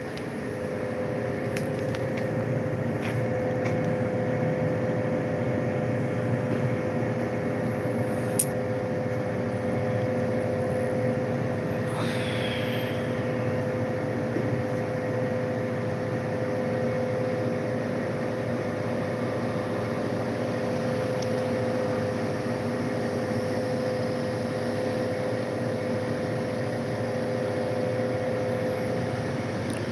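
Steady city street background: a continuous mechanical hum with one constant tone over an even rush of noise, with a single sharp click about eight seconds in.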